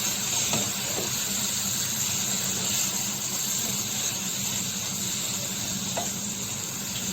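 Tomato and sev curry sizzling steadily in a pan on a gas stove as it is stirred, with a few light knocks of the spoon against the pan.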